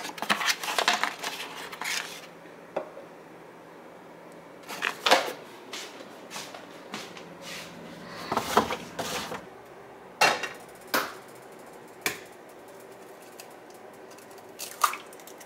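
Kitchen handling noises: a cardboard egg carton rustled and knocked about and put away, with scattered clacks and knocks, then a single sharp crack near the end as an egg is cracked on the rim of a frying pan.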